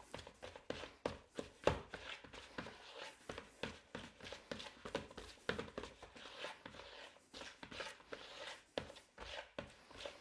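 Hands kneading a lump of homemade flour-and-water play dough on a worktop: an irregular run of soft presses and slaps, two or three a second, as the dough is worked smooth.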